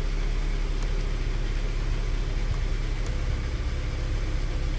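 2011 Kia Sorento's 2.4-litre four-cylinder engine idling steadily, a low even rumble.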